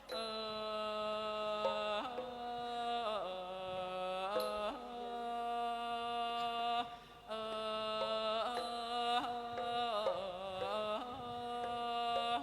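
Thai classical ensemble music: a held melodic line of long notes that slide up and down in pitch, breaking off briefly three times.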